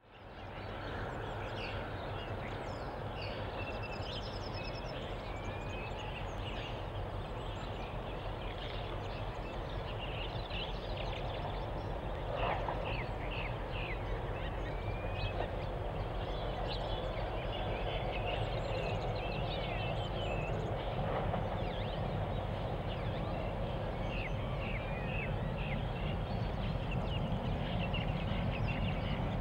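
Birds chirping and calling over the low, steady rumble of two distant diesel-electric locomotives running light toward the listener. The rumble grows slowly louder toward the end.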